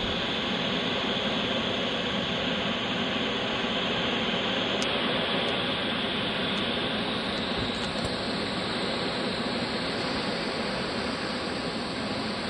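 Steady, even rush of water spilling over the lagoons' cascades, running high with winter floodwater.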